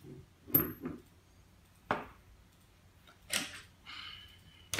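Hand tools being picked up and set down on a wooden table: a few separate metallic clicks and knocks, one with a brief high ring about half a second in, and a short scrape just before the end.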